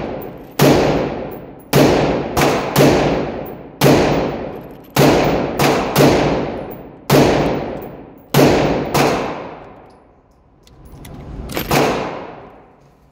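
About a dozen gunshots at an indoor shooting range, unevenly spaced, each followed by a long echoing decay. There is a pause of nearly three seconds before a last shot near the end.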